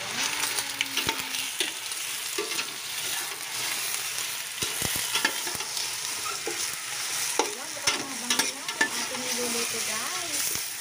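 Raw chicken pieces sizzling in hot oil in a cooking pot while being stirred with a metal spoon, which knocks and scrapes against the pot in scattered clicks.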